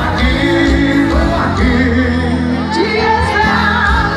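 Live forró band playing loud over a concert sound system, a singer's melody over a heavy, pulsing bass.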